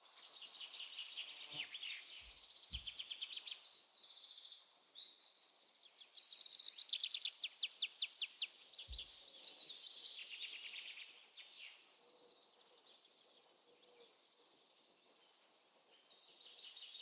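Jungle ambience: several birds calling over a steady high-pitched drone of insects. The loudest part is one bird's run of quick whistled notes, starting about six seconds in and slowing into about four separate down-slurred notes a second before it stops near eleven seconds.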